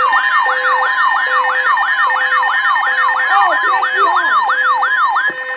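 Electronic siren yelping, its pitch sweeping quickly down and up about two and a half times a second, layered over a steady tone and a lower beeping tone. It cuts off about five seconds in.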